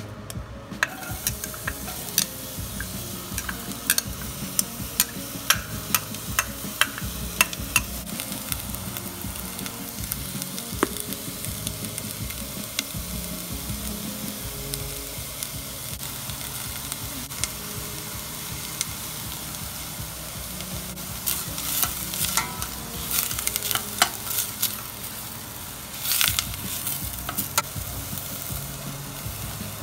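Diced onion sizzling in hot oil in a stainless steel saucepan, the sizzle starting about a second in as the onion lands and going on steadily as it fries. A utensil clicks and scrapes against the pan in bursts as the onion is stirred.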